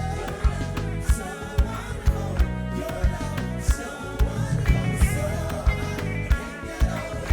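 Gospel band playing reggae: bass guitar, electric guitar and drums, with a steady drum hit about twice a second.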